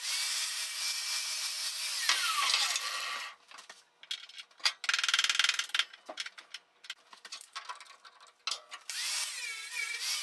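Angle grinder with a flap disc grinding down an aluminium foot peg, then switched off and winding down with a falling whine about two seconds in. Scattered clicks and knocks follow as the peg is handled. Near the end the grinder starts up again with a rising whine.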